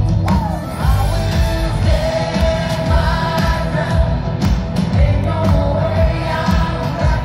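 Live band playing a song through an outdoor stage PA: a lead singer over electric guitar, keyboard and a steady drum-and-bass beat.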